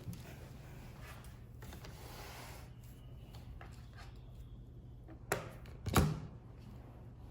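Soft rubbing and handling of objects with a few light clicks, then two sharper knocks about five and six seconds in.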